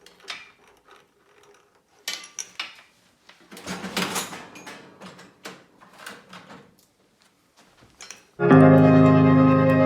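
Scattered clicks, knocks and scrapes of hand work on a Honda CR250 dirt bike as the throttle cable is taken off. About eight seconds in, loud keyboard music with held chords starts.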